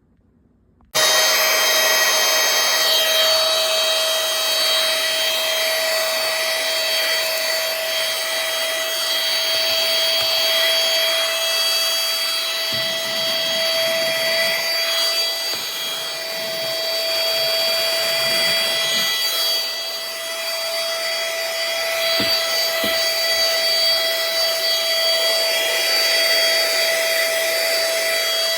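Duck compact cordless handheld vacuum running with a steady high motor whine and rushing air. It comes on suddenly about a second in.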